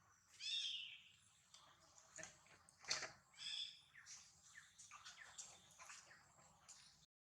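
Baby long-tailed macaque giving short, high-pitched squeaking cries twice, about three seconds apart, with a sharp click between them and faint scattered rustles.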